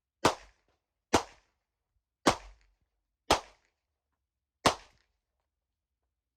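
Five pistol shots fired one at a time at a steady, deliberate pace of about one a second, with a slightly longer pause before the last.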